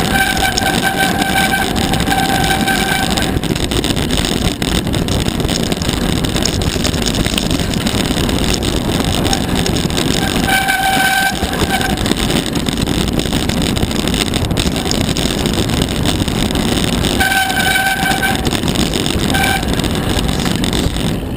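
Mountain bike riding fast down a rocky gravel singletrack: steady rush of wind on the bike-mounted camera's microphone with tyre and frame rattle. A high, steady whine comes in briefly at the start and again a few more times.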